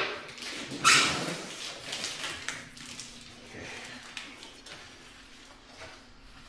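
A sharp click, then a short loud burst of noise about a second in, followed by light clicks and knocks of motorcycle parts and tools being handled.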